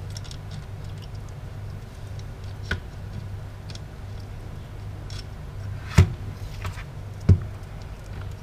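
Light clicks and knocks of a disassembled wiper motor's metal parts and hand tools being handled on a workbench. Two sharper knocks come about six and seven seconds in, over a steady low hum.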